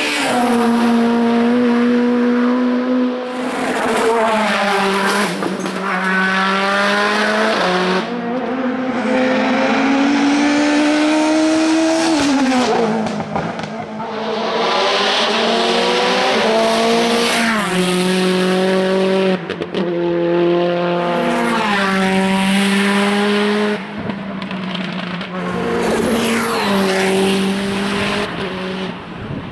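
Race-tuned touring car engines at full throttle on a hillclimb, revving hard through the gears: each climb in pitch ends in a sharp drop at the gear change, over and over, as the cars pass one after another. Tyres squeal in the corners.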